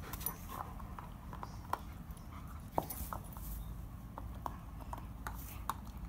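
Greyhound-cross dog mouthing and chewing a tennis ball: scattered short clicks and mouth noises, sharpest about a second and a half and about three seconds in, over a steady low rumble.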